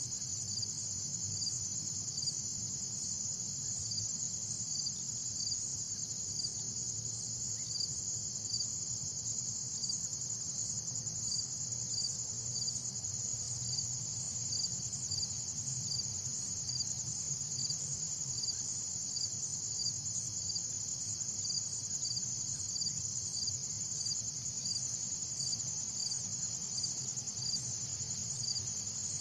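Steady high-pitched insect chirring, like a cricket chorus, with a faint regular pulse about one and a half times a second.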